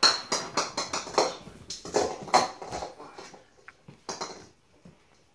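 A small hard plastic ball bouncing and clattering on a laminate floor: a quick run of sharp bounces over the first three seconds, then a few scattered taps.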